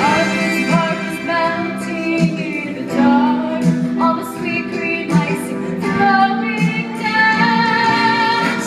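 A female voice singing a melodic line over a live band, with sustained accompaniment underneath.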